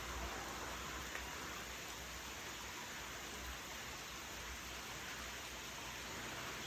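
Steady rain falling, an even hiss with no breaks, over a low rumble.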